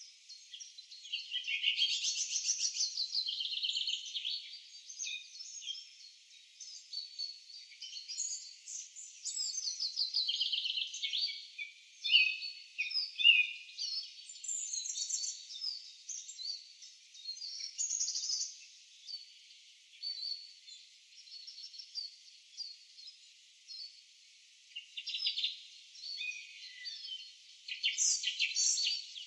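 A nature sound-effect track of small birds chirping and trilling, calls overlapping in quick runs with brief lulls, and a quieter stretch late on before a busier burst near the end.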